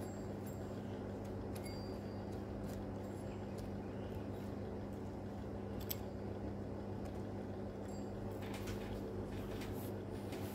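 A steady low electrical hum, with a few faint, scattered clicks and taps from small chainsaw parts being handled.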